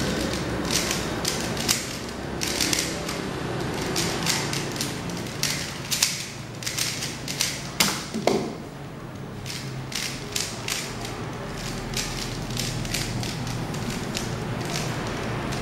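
Moyu Aolong v2 3x3 speedcube being turned fast by hand, a rapid, irregular run of plastic clicks and clacks. About eight seconds in the solve ends with a heavier knock as the timer is stopped on the keyboard, and after a short pause the cube is turned again, clicking more sparsely.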